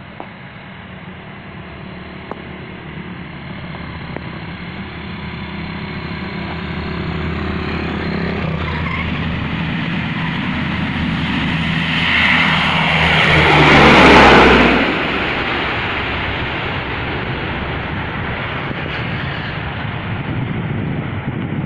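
Four-engine turboprop aircraft, the C-130 Hercules, passing close by. Its engine and propeller sound builds steadily, peaks loudly about two-thirds of the way through, and drops in pitch as it goes past.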